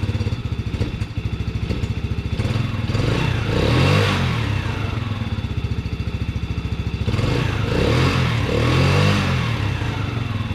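Can-Am engine running at idle, its freshly cleaned carburettor feeding it, and revved up and back down twice. The owner takes it as running well now.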